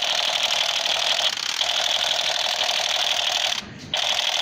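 A continuous, rapid mechanical buzzing that cuts out for a moment about three and a half seconds in.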